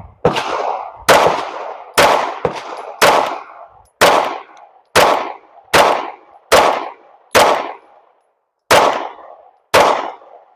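SIG Sauer P320 9mm pistol fired in slow, steady succession: about ten sharp shots roughly a second apart, each ringing out and fading before the next.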